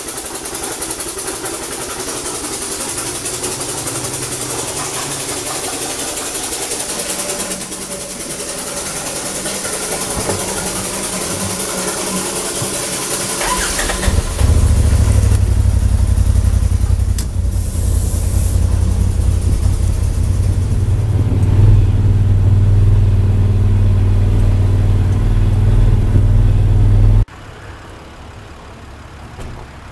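Polaris RZR Turbo side-by-side's engine running, with a steady hiss at first. About halfway through it turns into a loud, deep steady rumble that cuts off suddenly near the end, leaving a much quieter background.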